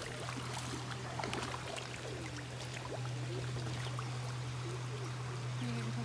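Water splashing and slurping as a crowd of koi feed at the pond surface, a dense scatter of small splashes and sucks, over a steady low hum.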